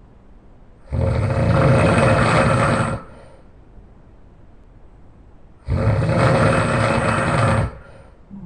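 A person snoring loudly: two long snores, each about two seconds, starting and stopping abruptly, about five seconds apart.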